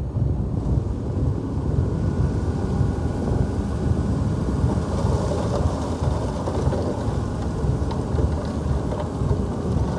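Heavy diesel earthmoving machinery, a bulldozer or dump truck, running with a steady deep rumble.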